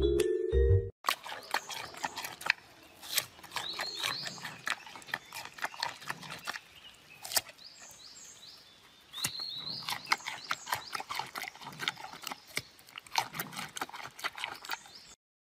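Brief music, then a giant panda biting and chewing a raw carrot: irregular crisp crunches and crackles several times a second, easing off for a moment past the middle.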